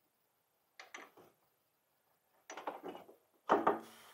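Short knocks and rubbing from suspension parts being handled by hand in a car's front wheel well: a few brief knocks about a second in, then a louder cluster of knocks near the end.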